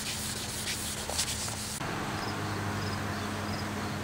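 Hand wet-sanding of a plastic headlight lens with 800-grit sandpaper: quick back-and-forth scratchy strokes that stop abruptly about two seconds in, taking off the old coating and yellowed oxidation. After that comes a steady low hum and hiss with faint high chirps repeating a few times a second.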